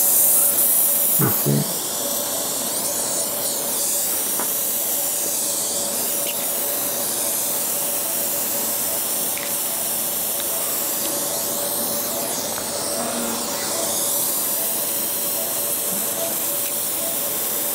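Surgical suction cannula hissing steadily as it draws air and fluid, its hiss slowly shifting in pitch, over a faint steady hum. There is a brief low knock about a second in.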